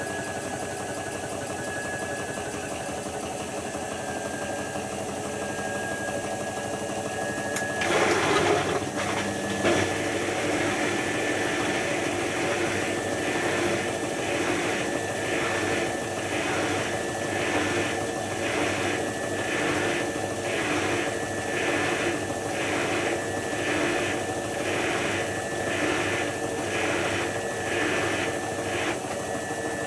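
Hotpoint HF8B593 washing machine running in the rinse-and-spin stage of a synthetics cycle, with a steady motor whine. About eight seconds in there is a louder surge, and after that the sound pulses evenly a little more than once a second as the drum turns.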